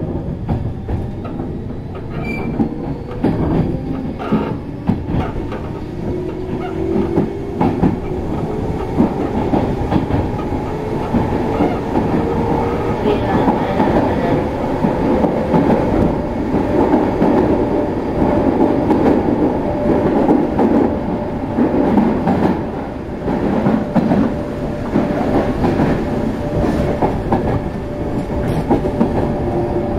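Kintetsu 6600 series field-chopper electric train heard from inside the car while running. The traction motors whine, rising in pitch as the train gathers speed and then holding steady, over the rumble of the running gear. The wheels clatter over the rail joints.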